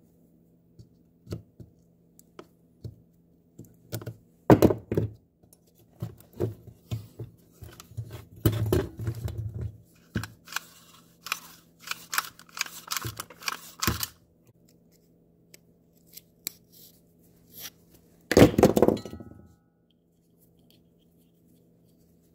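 Hands working a pull-cord recoil starter assembly on a workbench: scattered clicks and knocks of the plastic pulley and metal housing as it is wound and a new starter rope is threaded through. There is a stretch of rubbing and scraping partway through, and later one louder knock.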